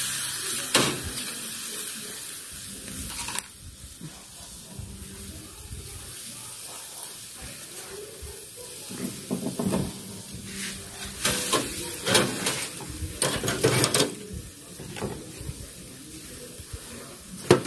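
Chicken tikka skewers sizzling over glowing charcoal in a small brazier, with a loud hiss over the first few seconds as they start cooking, then a steadier, quieter sizzle. A few short sharp bursts come around the middle.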